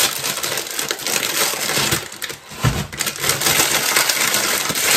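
Plastic food packaging crinkling and rustling in the hands: a digestive biscuit packet and a bag of raisins. There is a dull thump about two and a half seconds in.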